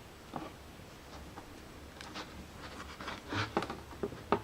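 Handling noise from a children's electronic sound book: a few faint clicks and short rustles, bunched together between about two and four and a half seconds in.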